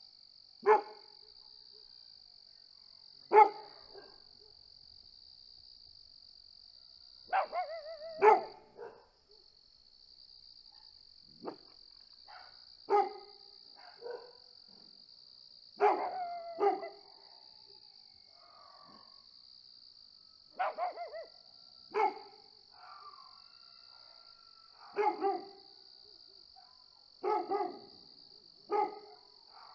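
Dogs barking at irregular intervals, single barks and short runs of two or three, over a steady high-pitched chirring of crickets.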